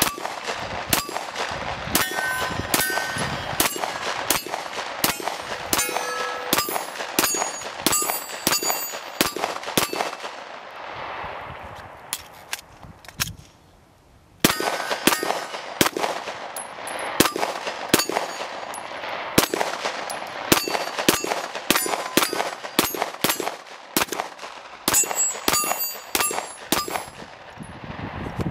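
Glock 17 Gen 4 9mm pistol fired in quick strings of shots, many followed by the ringing clang of steel plate targets being hit. The shooting stops for a few seconds about halfway through, then resumes at the same pace.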